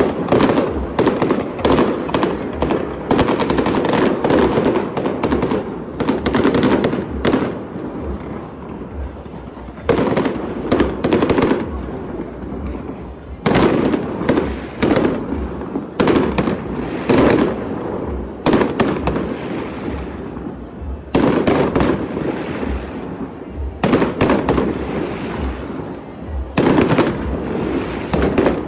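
Fireworks display: rapid volleys of shell bursts and crackling bangs, coming in clusters every few seconds with short lulls between them.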